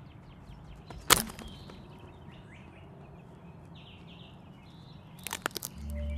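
Quiet woodland ambience with faint bird chirps. A single sharp crack sounds about a second in, and a quick run of cracks near the end as a boot steps down on dry twigs. A low held music tone comes in just before the end.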